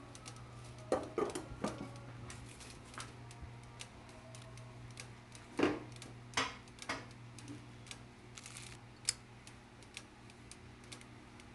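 Scattered light clicks and knocks at irregular intervals over a faint steady hum, with a small cluster about a second in and the loudest few around the middle.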